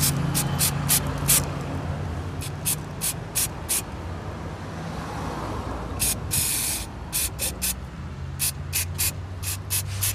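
Aerosol can of brake cleaner sprayed in many short hissing bursts, with one longer spray about six seconds in, onto a soot-caked oxygen sensor to clean it. A low steady hum runs underneath.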